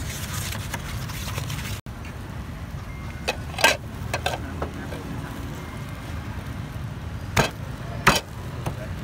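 A heavy cleaver chopping through a grilled duck on a wooden chopping board: a cluster of sharp strikes about three and a half seconds in, then two more near the end, over a steady low street rumble.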